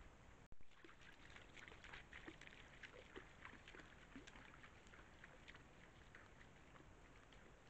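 Wild boar foraging close to the camera: a faint, irregular patter of small clicks and rustles, densest in the first few seconds after a brief break in the sound about half a second in.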